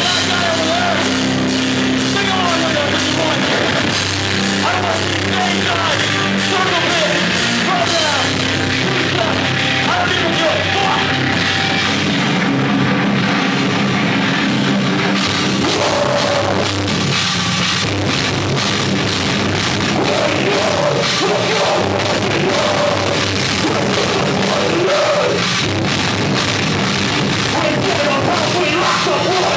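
Live hardcore metal band playing loud: electric guitars, bass guitar and a drum kit, with a singer on microphone.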